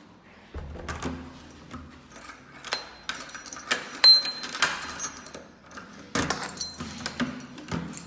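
Keys jangling and a key turning in a door lock, with a run of clicks and clacks from the lock and the metal lever handle; the sharpest, loudest metallic clack comes about four seconds in, and the door swings open near the end.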